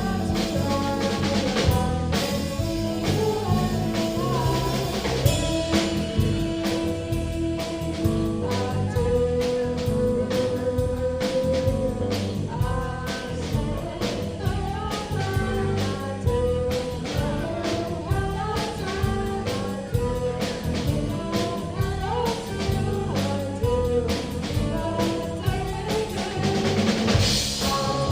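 Live band playing a song, with a singing voice over a drum kit and other instruments.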